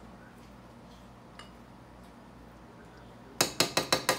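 A big serving spoon tapping quickly against the rice pot and bowl, about six sharp clinks in under a second near the end, knocking rice off the spoon.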